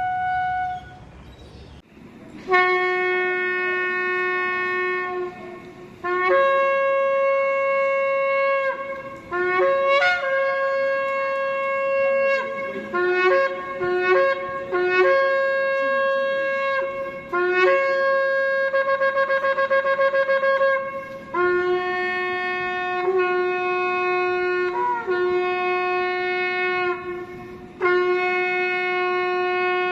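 Shofar blasts: long held notes that step between a lower and a higher pitch, with a run of short broken blasts in the middle and one held note that wavers. There is a brief pause about two seconds in.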